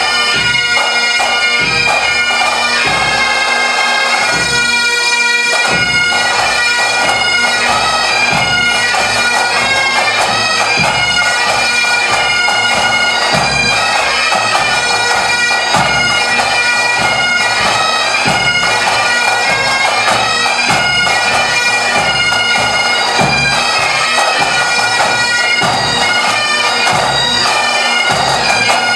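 Pipe band playing a tune: several Great Highland bagpipes sounding together over their steady drones, with drums keeping time.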